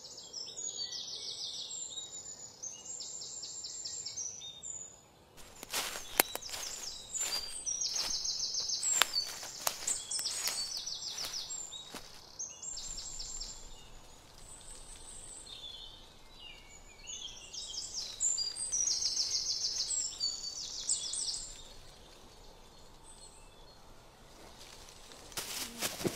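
Songbirds singing in short, fast, high trilling phrases that come again every few seconds. Footsteps crunch on dry leaf litter for several seconds near the middle, and a brief rustle or knock comes near the end.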